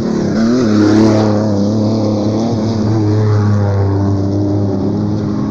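Off-road race truck engines running hard at full throttle, their pitch rising and falling with the throttle over a steady low drone.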